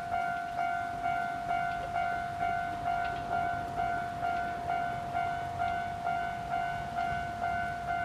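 Railway level-crossing warning bell ringing about twice a second, each ring starting sharply and fading, steady throughout. It is sounding because a train is approaching.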